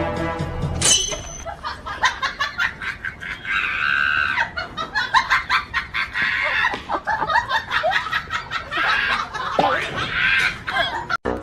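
Chickens clucking and squawking, mixed with people laughing, in quick irregular bursts.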